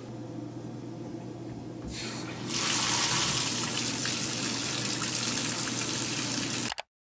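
Water from a bathtub shower's tap turned on, starting with a brief splutter about two seconds in. It then runs as a steady, loud hiss of running water and cuts off suddenly near the end.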